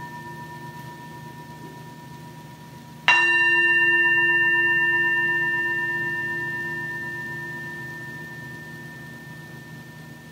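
Metal singing bowl held on the palm, struck once about three seconds in. It rings with several steady tones that fade slowly, while the ring of the previous strike is still dying away at the start.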